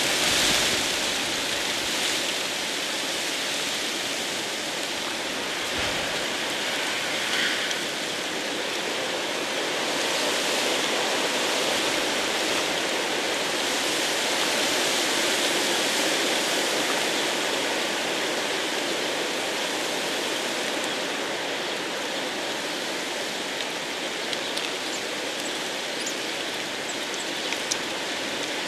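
Steady hiss of heavy storm rain, with a few faint ticks near the end.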